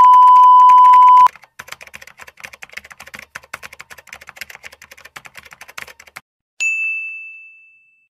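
A steady electronic beep for about a second, then typewriter key sound effects clacking rapidly for about five seconds, ending in a single typewriter bell ding that rings and fades.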